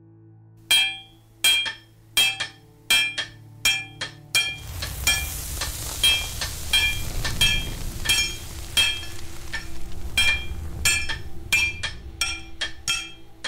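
A hammer strikes metal on an anvil in a steady forging rhythm, about four blows every three seconds, each with a bright metallic ring. Some blows come in quick pairs near the end. From about four seconds in, a rushing, crackling forge-fire noise joins.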